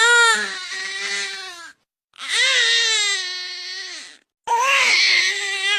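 Newborn baby crying in three drawn-out cries, each tailing off. This is the 'eairh' cry, which in the Dunstan baby-language system signals lower wind or gas.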